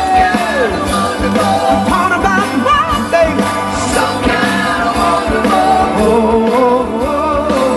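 Live rock band playing, with a steady drum beat and wordless vocal lines.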